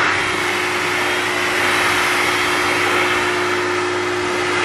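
Wall-mounted hose-type hair dryer running: a loud, steady rush of blown air with a constant motor tone underneath.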